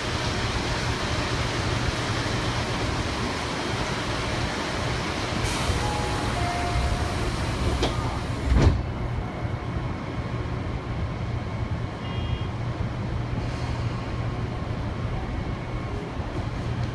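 Commuter electric train running, heard from inside the car: a steady rumble with a low hum. A single sharp knock comes about halfway through, and the high hiss drops away at once after it.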